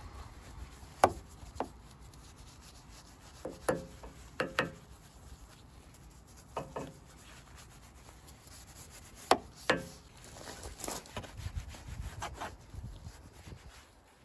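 Detailing brush scrubbing shampoo foam in a car's carbon-fibre honeycomb grille mesh, with about nine sharp knocks in ones and pairs as the brush strikes the grille. Near the end the scrubbing gets faster and more continuous.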